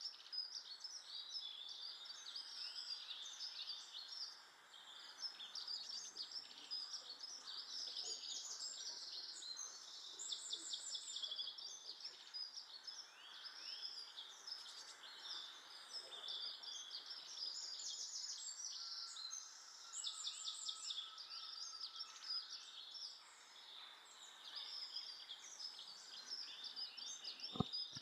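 Small garden birds chirping and twittering almost without pause, many short high calls overlapping. A single sharp click sounds near the end.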